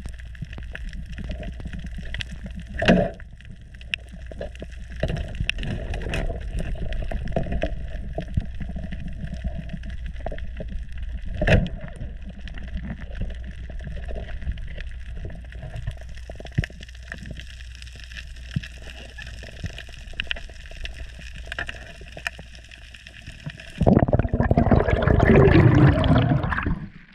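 Underwater sound of a reef dive: a steady low water rumble with scattered crackling clicks, and two sharp knocks, one about three seconds in and one near the middle. Near the end a loud rush of water and bubbles lasts about three seconds.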